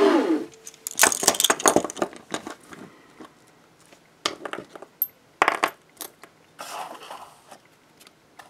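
Hiatt 1960 pattern steel handcuffs clinking and rattling as they are handled: a quick run of metallic clinks about a second in, then a few separate clicks and a short rustle near the end.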